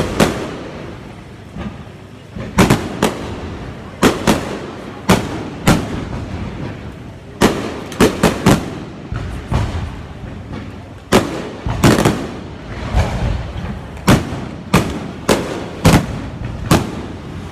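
Fireworks display: a long string of loud bangs at irregular intervals, sometimes several in quick succession, each followed by a rumbling echo.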